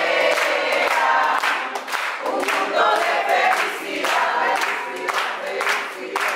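A crowd of men and women singing a birthday song together, with rhythmic hand clapping to the beat at about two to three claps a second.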